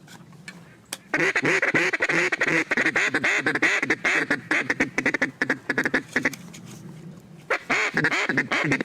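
Mallard duck call blown in two long strings of rapid, loud quacks, the first lasting about five seconds and the second shorter near the end: calling to ducks working overhead.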